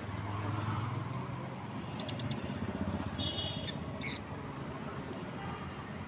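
Caged lovebirds chirping: a quick run of sharp high chirps about two seconds in, then a shorter call and one more chirp, over a low steady rumble.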